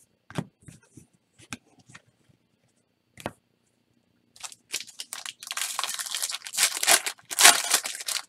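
A few light clicks and taps from trading cards being handled, then a foil Topps Chrome card pack wrapper being torn open and crinkled, loudest in the last few seconds.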